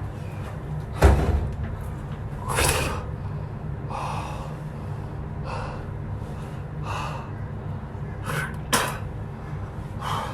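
A man gasping and breathing hard in short, breathy bursts every second or so, from the burn of a superhot chili pepper. A steady low hum runs underneath, and the loudest gasp comes about a second in.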